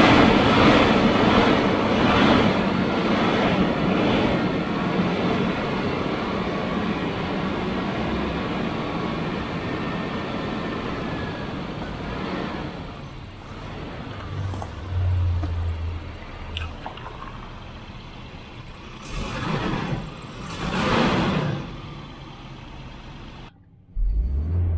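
Volvo 740's B230F four-cylinder engine running rough and revved by hand at the throttle while brake cleaner is sprayed into the intake, a test of whether the engine is starving of fuel. The engine noise swells and falls for about half the time, then settles lower; two short hisses come a little before the end.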